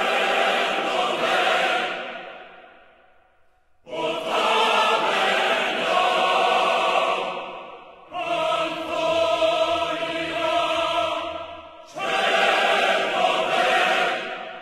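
A choir singing held chords in four phrases, each starting about four seconds after the last and fading away before the next.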